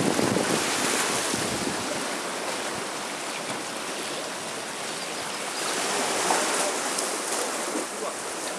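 Shallow sea water washing and lapping, with wind buffeting the microphone that is strongest in the first two seconds and then eases.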